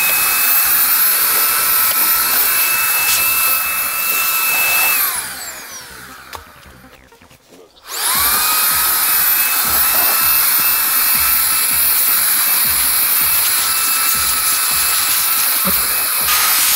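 Makita 40V cordless air duster blowing: a high whine over rushing air that spins up, runs steadily, then winds down with a falling pitch about five seconds in. It starts up again at about eight seconds and runs steadily on.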